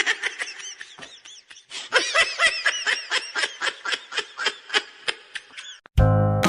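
A fast run of short, high-pitched, laugh-like calls, about five a second, growing louder about two seconds in and stopping suddenly near the end. Music begins right after.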